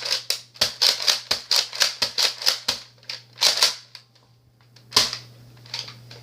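Rapid hard-plastic clicks and clacks from a Nerf N-Strike Elite Rampage blaster being worked by hand after assembly: a quick run of clicks for about three seconds, a few more about three and a half seconds in, and one sharp clack about five seconds in.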